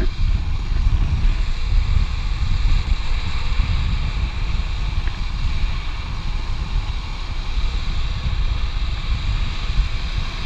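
Wind buffeting the camera microphone over the steady rolling roar of longboard wheels on asphalt during a fast downhill run.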